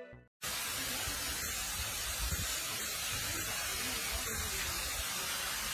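Steady, even hiss of outdoor background noise with a faint low rumble, starting abruptly about half a second in after a brief silence.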